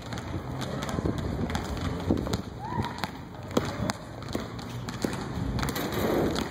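Basketballs bouncing on a concrete court: irregular thuds from several balls being dribbled and tossed, with children's voices and calls in the background.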